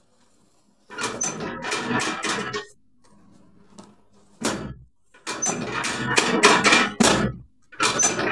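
Spells of rustling and knocking from a patient's body being moved and worked on a treatment table during a chiropractic adjustment, with one heavy thump in the middle and short high squeaks.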